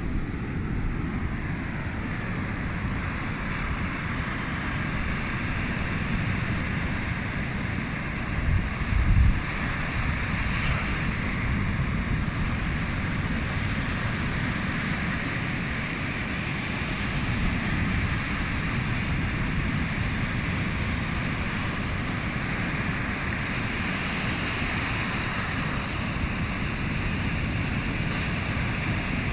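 Sea waves washing onto the shore, a steady surf wash, with wind buffeting the microphone; a stronger gust about nine seconds in.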